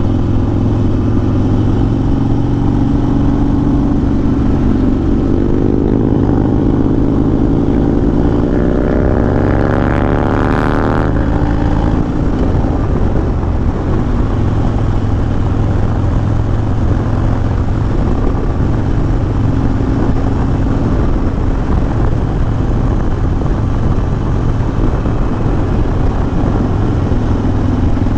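Harley-Davidson Dyna's V-twin, through a Bassani Road Rage 2-into-1 exhaust, heard from the rider's seat while cruising. From about four seconds in the engine pulls with its pitch rising for several seconds. The rise breaks off suddenly about eleven seconds in, and the engine settles back to a steady cruise.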